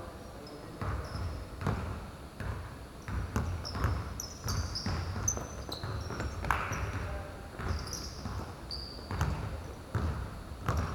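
A basketball bouncing repeatedly at an uneven pace, each bounce a sharp thump. Short, high squeaks run between the bounces, typical of basketball shoes on a court floor.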